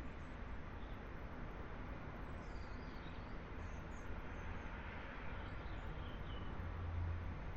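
Steady distant city traffic hum, a low rumble that swells briefly near the end. A few faint high chirps come through over it twice.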